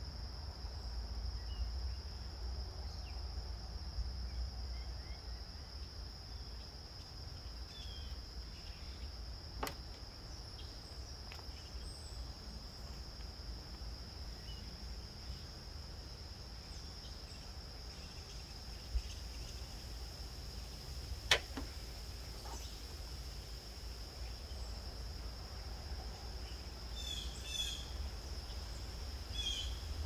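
Outdoor background: a steady high-pitched whine over a low rumble, with two sharp clicks about ten and twenty-one seconds in and short bird chirps near the end.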